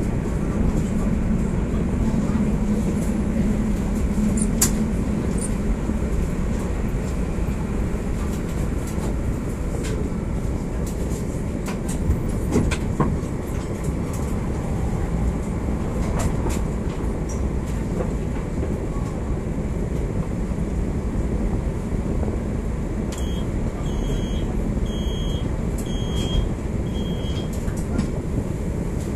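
Coupled PCC trams heard from the cab: a steady low rumble, with a hum in the first few seconds and a few sharp clicks. Near the end there are about five short high beeps.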